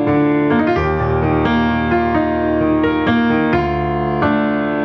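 Instrumental break of a romantic ballad: a piano-like keyboard plays a melody, a new note about every half second, over held chords and a bass line.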